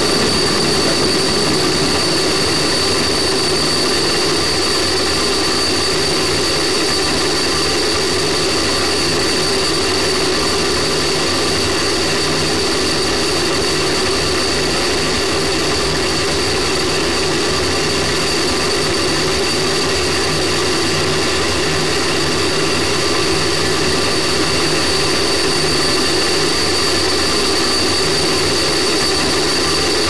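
Space Shuttle solid rocket booster burning during first-stage ascent, heard from a camera mounted on the booster itself: a loud, steady rocket roar with a thin, steady high-pitched tone over it.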